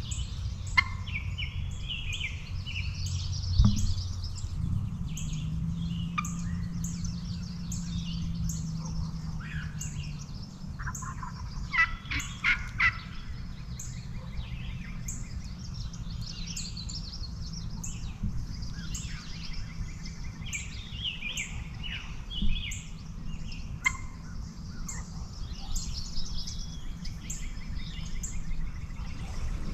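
Wild turkey gobbling, a rapid rattling call about twelve seconds in, with small songbirds chirping throughout. Two low thumps stand out, near the start and about two-thirds of the way through.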